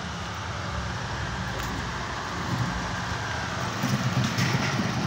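Steady outdoor din: a low, even hum under a broad rushing noise, with a brief voice-like sound near the end.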